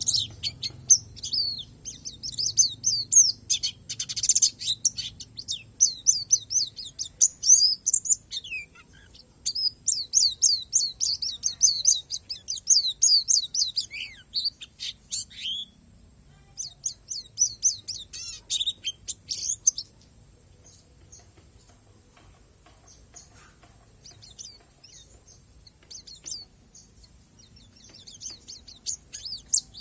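A pleci palas Borneo white-eye sings a fast, high twittering song of rapid chirps in long bursts. Two-thirds of the way in it goes nearly quiet for several seconds, then the song picks up again near the end.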